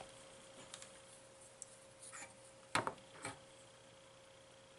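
Light clicks and taps of capacitance-meter test leads being placed on an old electrolytic capacitor's terminals: a few faint ticks, then a couple of sharper clicks about three seconds in, over a faint steady tone.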